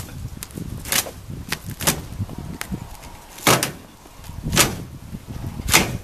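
Plastic shrink wrap being torn and pulled off a wooden shipping crate: a series of short, sharp rips and crackles, a few lighter ones in the first half and three louder ones from about halfway on.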